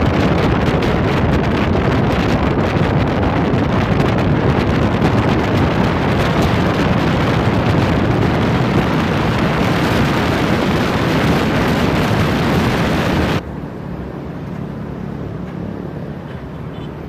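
Wind rushing over the microphone of a camera mounted on the outside of a moving car, with road noise underneath, loud and steady. About thirteen seconds in it cuts suddenly to a quieter, steadier traffic hum.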